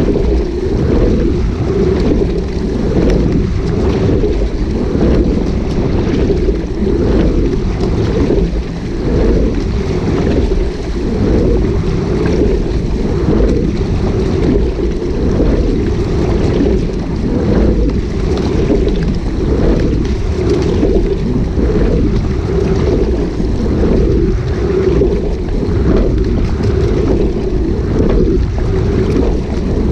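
Wind buffeting the microphone of an action camera on a rowing shell's bow, over water rushing along the hull. The sound swells and eases in a regular rhythm with the rowing strokes.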